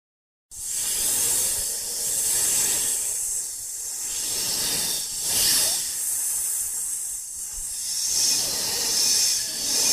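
A rushing hiss that cuts in about half a second in and swells and fades several times, with no pitch to it.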